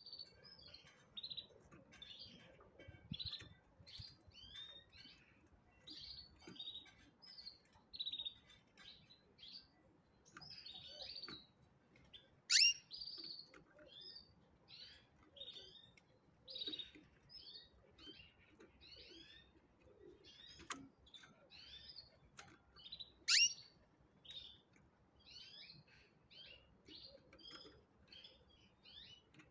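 Canaries chirping: a steady run of short, high calls, with two louder sharp calls, one near the middle and one about three quarters through.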